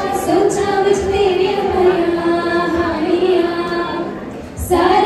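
Women singing a song together into handheld microphones, holding long notes, with a short break about four and a half seconds in before the singing resumes.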